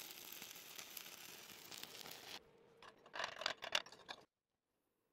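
Stick-welding arc burning a 3/32-inch 7018 electrode, a steady crackling sizzle that cuts off about two and a half seconds in as the arc is broken. A burst of short, sharp crackles and scrapes follows about a second later, then it goes quiet.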